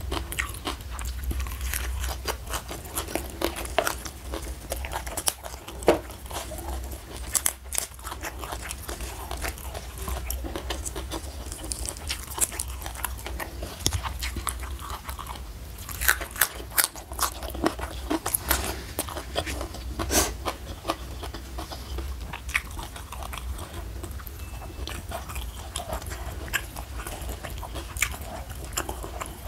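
Close-miked eating sounds: a person biting and chewing crunchy raw lalapan greens, with a steady run of sharp crunches and wet mouth clicks and a cluster of louder crunches past the middle. A faint steady low hum lies underneath.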